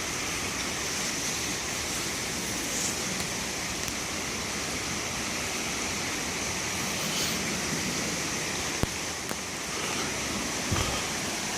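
Steady rushing of a creek's flowing water, an even hiss with no rhythm, with one faint click near the end.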